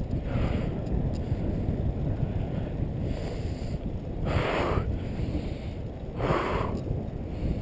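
Wind buffeting a GoPro HD Hero2's microphone on a moving bicycle, a steady dense rumble. Two short louder hissing swells come about four and a half and six and a half seconds in.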